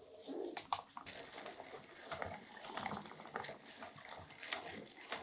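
Hand-cranked metal meat grinder mincing fresh herbs and vegetables: an uneven run of small wet crackles as they are forced through the plate, with a sharp click about a second in.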